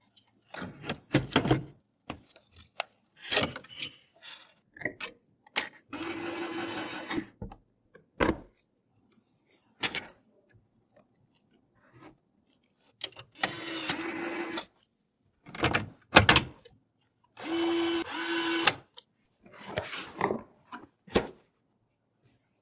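Small electric screwdriver whirring in three short bursts of about a second each, among scattered clicks and knocks of parts being handled and fitted.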